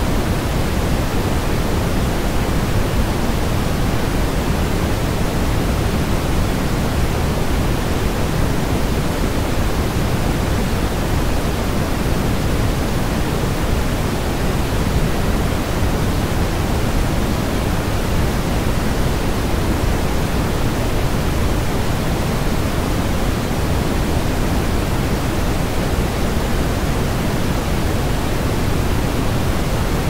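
Steady generated white noise played as a baby sleep sound, even and unchanging, deeper and heavier in the low end than a thin hiss.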